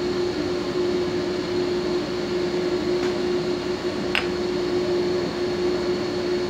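Steady machine hum with one strong low tone and a faint high whine. Two light clicks, about three and four seconds in, come from small metal pump parts being handled.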